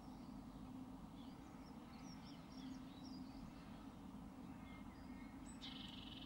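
Faint birdsong of wild birds: scattered short chirps, then a brief rapid trill near the end, over a steady low hum.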